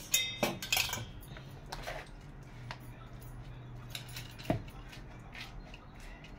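A few sharp clinks of a metal whisk against a stainless steel bowl in the first second. Then faint taps and scrapes of a plastic spatula stirring steamed glutinous rice with coconut milk in a plastic bowl.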